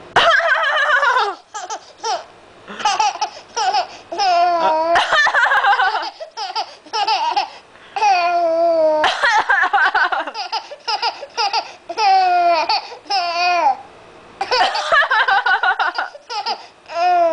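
A seven-month-old baby laughing in repeated high-pitched bursts, some of them long and wavering, set off by coughs.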